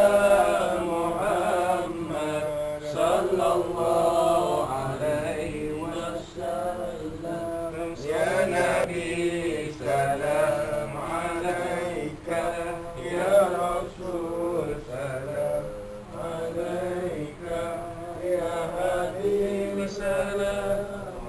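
A group of men's voices chanting together in a drawn-out, melodic devotional chant.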